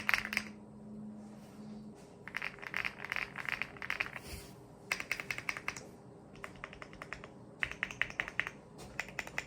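Typing on a Weikav Lucky65 mechanical keyboard with stock, unlubed Akko switches and plate-mounted stabilizers, in quick bursts of keystrokes separated by short pauses.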